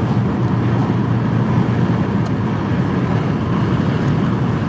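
Steady road noise inside a moving car: tyres and engine droning at highway speed.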